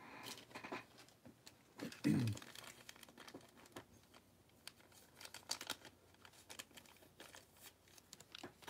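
Faint, irregular crinkling and small clicks, like light handling noise at a desk, with a short low hum of a voice about two seconds in.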